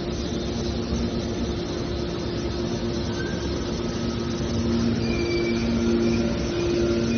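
Hydraulic scrap metal baler running: a steady mechanical hum with two held tones over a rumbling noise, growing a little louder about halfway through.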